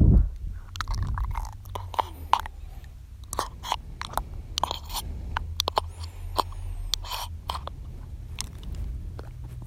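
ASMR mouth sounds: irregular wet tongue and lip clicks and smacks, several a second.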